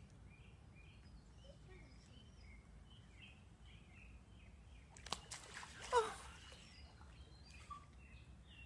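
Small birds chirping repeatedly in the background. About five seconds in, a splash of water as a monkey goes from a bodyboard into a swimming pool, with a short falling cry at its loudest point.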